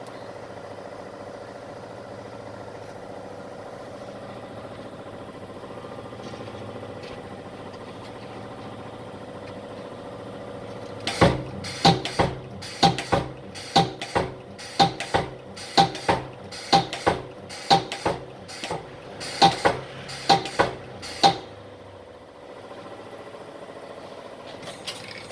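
Spot welding machine firing welds: about twenty sharp clacks in quick succession, roughly two a second, over about ten seconds, with a steady hum before and after.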